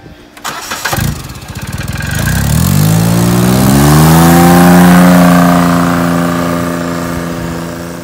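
John Deere Gator utility vehicle's engine starting up with a short crank about half a second in. It revs up as the vehicle pulls away, its pitch rising over a couple of seconds and then holding steady. It fades near the end as the vehicle drives off.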